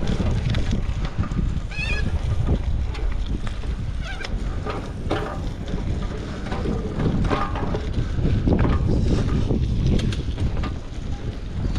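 Wind buffeting the microphone as a bicycle rolls over a gravel car park, with a few short, wavering bird calls about two and four seconds in.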